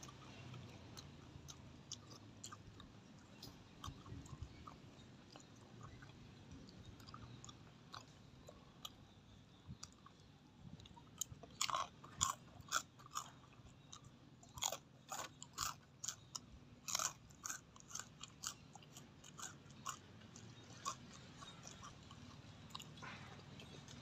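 A person chewing crunchy pork cracklings close to a clip-on microphone: quiet mouth sounds at first, then a run of sharp crunches from about halfway in that thins out toward the end.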